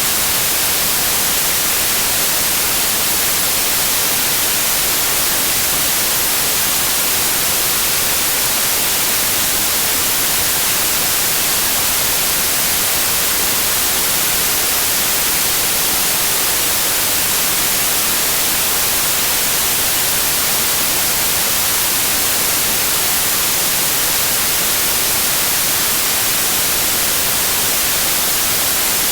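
Steady electronic white noise: an even, unchanging hiss, strongest in the treble.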